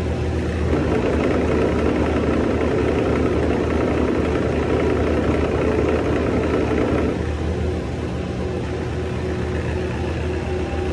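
Boat engine running with its Advance D300 marine gearbox on a test run after repair. The sound grows louder about a second in and drops back about seven seconds in, while the gearbox is worked by hand at its control-valve shift lever.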